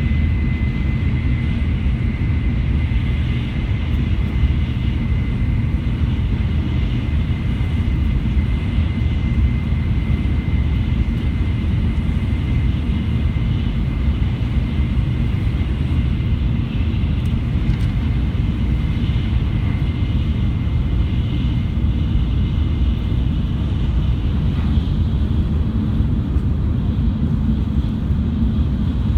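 Shinkansen bullet train running at speed: a steady low rumble with a thin high whine that fades away over the first twenty seconds or so.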